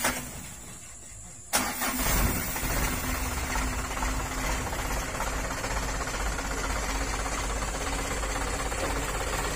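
Mitsubishi Colt dump truck's diesel engine starting suddenly about a second and a half in, then running steadily.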